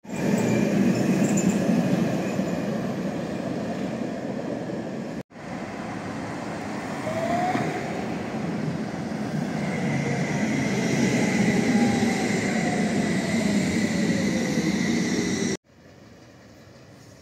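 City trams running on street track. First a tram rumbles past close by. After a cut a second tram comes in with a rising rumble, a whine that slowly falls in pitch, and a high steady tone. After a second cut a tram is heard faintly at a distance.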